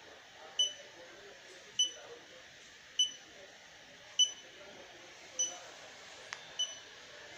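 Massage chair's electronic beeper giving short, high beeps at an even pace of about one every 1.2 seconds, six in all.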